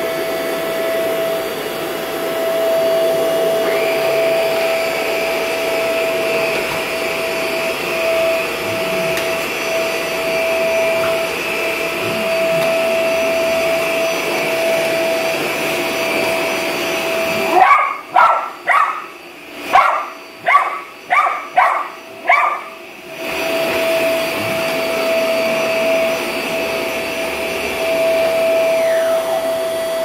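A Vax upright vacuum cleaner runs with a steady motor whine. Partway through, the vacuum sound stops for about five seconds, and in that gap a Havanese dog barks about eight times in quick succession. Then the vacuum runs again.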